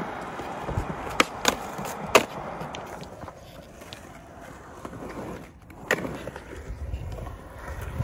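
Skateboard wheels rolling on smooth concrete, with a few sharp clacks between one and two seconds in and another about six seconds in. The rolling thins out in the middle and builds again into a low rumble near the end.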